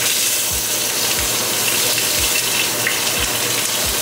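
Ribeye steak searing in a hot pan of coconut oil: a loud, steady sizzling hiss.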